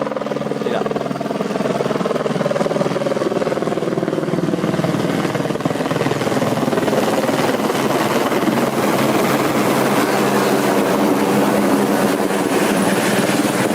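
Helicopter running: rapid rotor-blade chop over a steady engine whine.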